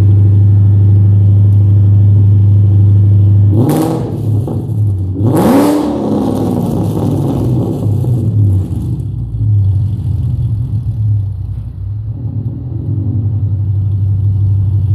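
Ford Coyote 5.0 V8 with long-tube headers, X-pipe and a race catback exhaust, idling steadily while warming up after a cold start. A little under four seconds in it is revved twice in quick succession, then it settles into a lumpy, uneven idle.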